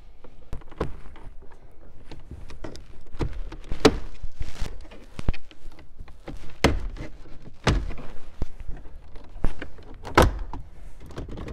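Plastic radio bezel of a 2012 Hyundai Accent dash being pried at with a vinyl panel tool and a small flat-head screwdriver: irregular clicks, scrapes and knocks as the tool works the tight retaining clips, with a few louder clicks.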